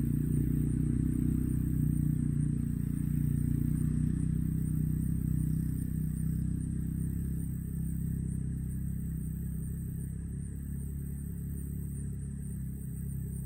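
Low, steady engine hum, slowly fading away.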